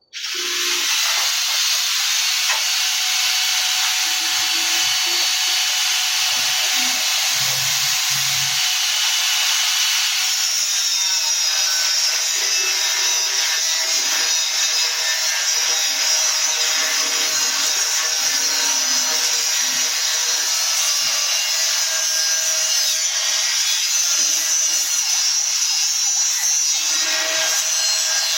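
A power tool runs continuously with a steady, even, hissing noise that starts abruptly.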